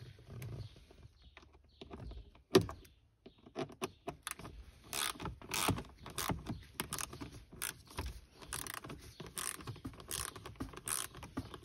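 Hand ratchet with a Torx bit clicking in short bursts as it is swung back and forth, loosening a Torx screw; one sharp click about two and a half seconds in, then a steady run of ratchet strokes, two or three a second.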